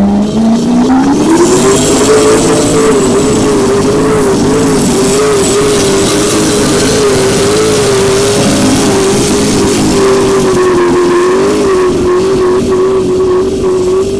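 Mini-class pulling tractor's engine revving up over about two seconds, then held at high revs with a slight waver in pitch as it drags the weight-transfer sled down the track.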